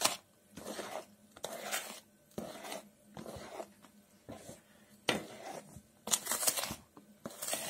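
Metal spoon stirring thick cake batter in a plastic bowl, folding in baking soda: repeated wet scraping strokes, about one a second.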